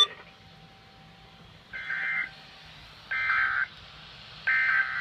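Emergency Alert System end-of-message signal on NOAA Weather Radio: three short, identical bursts of raspy, buzzing SAME data tones, about a second and a half apart. They mark the end of the warning message.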